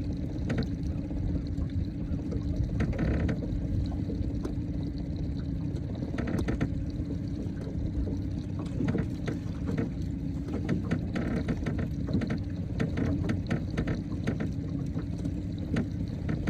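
Small fishing boat's motor running steadily at trolling speed, with water sloshing along the hull and scattered light knocks.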